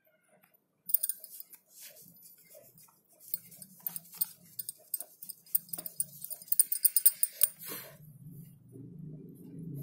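Colored pencil scratching rapidly back and forth on paper close to the microphone, a dense scratchy hiss full of quick ticks, starting about a second in and stopping just before the end. A steady low rumble follows near the end.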